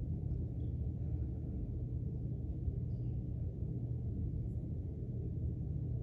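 A steady low hum, with nothing high-pitched in it and no change in level.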